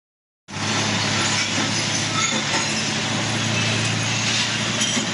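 Glass cullet crusher and its belt-driven electric motor running: a steady mechanical drone over a constant low hum, cutting in suddenly about half a second in.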